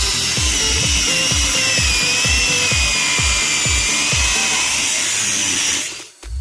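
Background music with a steady kick-drum beat, over a power tool's high motor whine that wavers a little in pitch. The tool noise cuts off near the end, leaving only the music.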